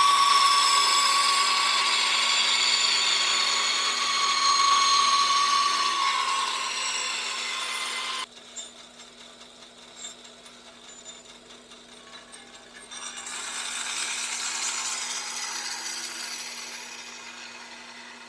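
Older Atlas bandsaw cutting welded aluminium tube: a high, slightly falling whine and hiss of the blade in the metal over a steady motor hum. The sound drops off abruptly about eight seconds in, and a second, quieter cut rises a few seconds later and fades.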